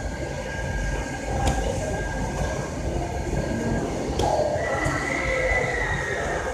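Shopping-mall ambience: a steady low rumble with a murmur of distant voices, a thin high whine that gives way to a slightly higher one about halfway through, and a few faint clicks.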